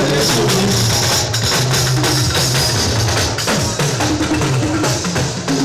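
Live fuji band music over a PA: dense drum and percussion playing over a steady bass line, with the lead vocal mostly paused.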